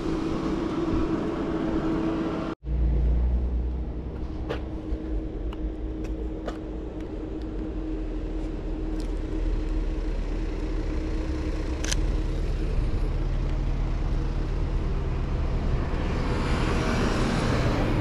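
A car engine running steadily nearby, a low rumble with a steady hum. The sound cuts out for an instant about two and a half seconds in, and a few faint sharp clicks follow.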